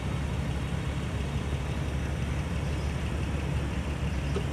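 BMW Z4 roadster's engine idling steadily while its power-folding hardtop closes.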